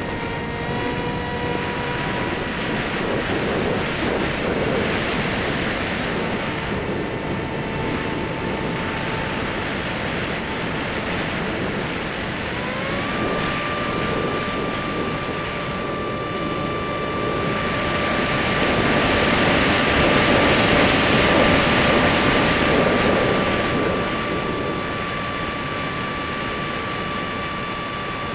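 Brushless electric motor and pusher propeller of a Skysurfer (Bixler) foam RC plane in flight, heard from its onboard camera: a steady whine over rushing wind noise. About halfway through, the whine climbs to a higher pitch as the motor speeds up and then holds there. Later the wind rush swells for several seconds before easing.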